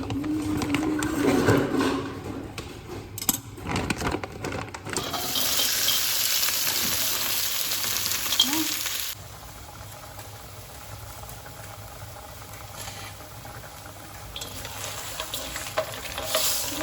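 Kitchen sounds during cooking: clatter and handling at first, then a loud hiss for about four seconds that cuts off abruptly, followed by a quieter steady hiss.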